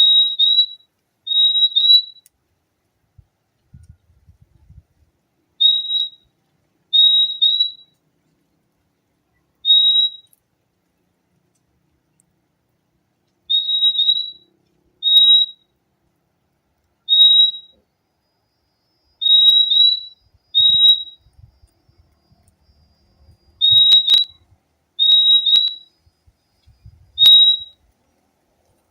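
Purple-throated euphonia (fim-fim) calling: short, clear, slightly rising whistled notes, mostly in quick pairs, 'fim-fim', repeated every one to three seconds. A couple of sharp clicks come in near the end.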